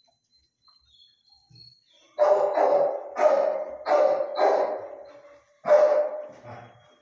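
Dog barking in a hard-walled kennel: about six loud barks starting about two seconds in, each echoing off the walls.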